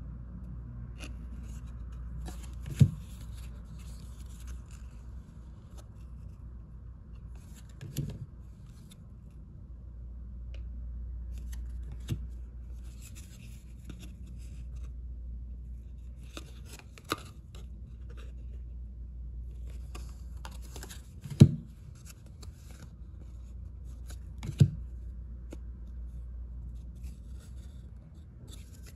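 2022 Panini Prestige football cards being handled, sliding and rustling against each other as they are moved through the stack one at a time. Four sharp knocks come through it, the loudest about three-quarters of the way in.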